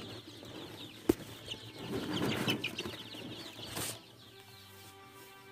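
A flock of three-week-old Sonali chicks peeping and clucking, with a single sharp knock about a second in. Soft music with steady held notes takes over near the end.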